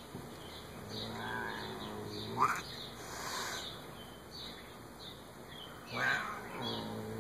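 Siamese cat growling low and drawn-out, twice, the first growl ending in a short rising yowl. A short hiss comes about six seconds in.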